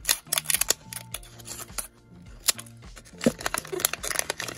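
Scissors snipping through the crinkly plastic wrapper of a Mini Brands blind bag, a quick run of sharp cuts, then the wrapper crinkling as it is pulled open by hand.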